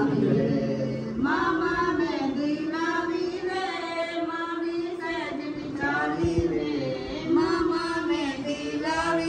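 A woman's voice singing a slow melody with long held notes.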